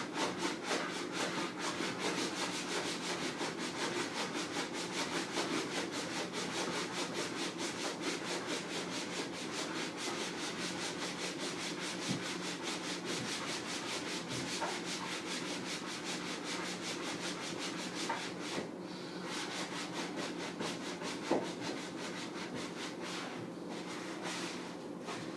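Sponge scrubbing the inside of a fridge in quick, rhythmic back-and-forth strokes. The strokes stop about eighteen seconds in and start again briefly near the end.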